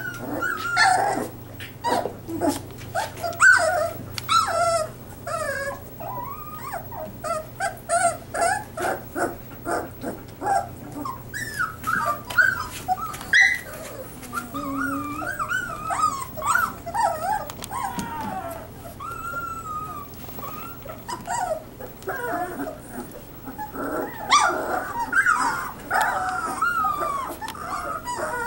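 A litter of three-week-old puppies whining and squeaking, many short high cries overlapping one after another, busiest near the start and again near the end.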